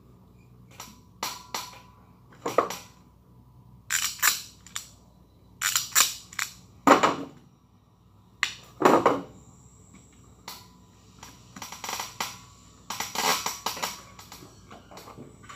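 Irregular clicks, rattles and rustles of wires and plastic parts being handled in an elevator control cabinet, with a few heavier knocks about seven and nine seconds in.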